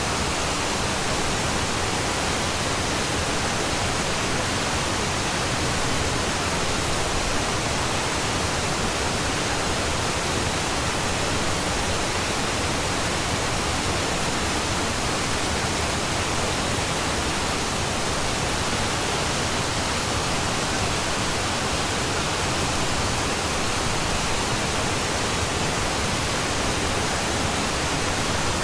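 Steady, unchanging hiss spread evenly from deep to high pitches, with no beat, tune or separate events: a masking noise track of the kind subliminal recordings use to cover quiet affirmations.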